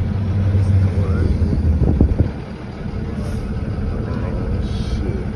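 Moving box truck's engine running, heard from inside the cab. About two seconds in there is a brief clatter, and the low engine hum drops away to a quieter, steady idle.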